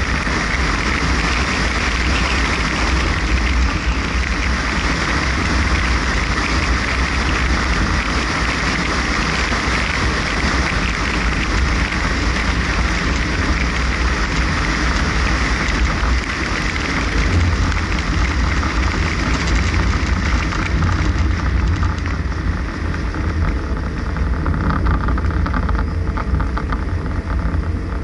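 Car driving along a country lane: steady engine and tyre rumble with a constant hiss, the hiss easing a little near the end.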